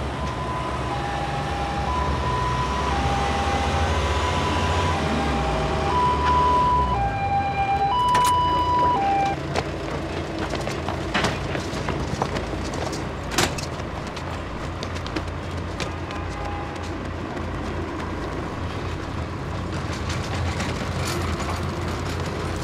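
Ambulance siren sounding a two-tone hi-lo call, a higher and a lower note taking turns about once a second, over a low engine rumble. The siren stops about nine seconds in, and a steady low rumble carries on with a few sharp knocks.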